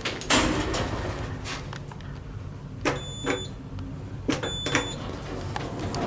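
Clicks and knocks inside a small lift car, then two short high beeps about a second and a half apart, each with a click, as call buttons on the Orona lift's car panel are pressed.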